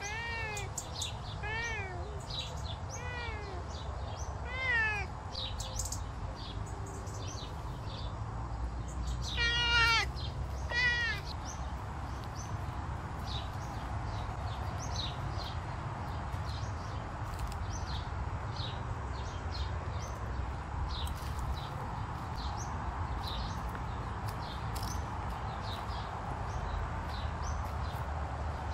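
Savannah cat meowing: a run of short, arched meows over the first few seconds, then two louder meows about ten seconds in. After that the meowing stops, leaving only faint high chirps and a low outdoor rumble.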